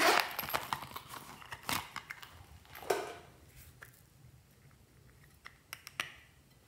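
Close-up handling sounds: a zippered faux-leather pouch rustling and its zipper clicking, loudest in the first half second, then a green plastic compact case handled, with a few sharp plastic clicks near the end as its lid is snapped open.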